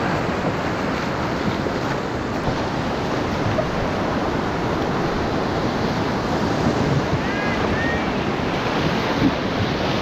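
Whitewater rapids rushing steadily around a solo canoe's bow, with wind buffeting the microphone.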